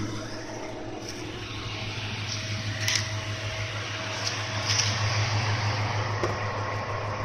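Dodge Charger R/T's 5.7-litre Hemi V8 idling steadily with a low, pulsing hum; it breathes through long-tube headers, no catalytic converters and Flowmaster Super 10 mufflers. A few light clicks come in the middle, as the hood is unlatched and raised.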